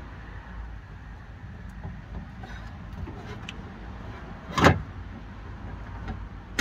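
A single loud metal clunk about four and a half seconds in as the electric window regulator is handled into the inner panel of the van's steel door, over a low steady rumble.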